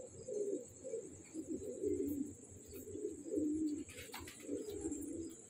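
Domestic pigeons cooing: a run of low, throaty coos, one short phrase after another about every half second.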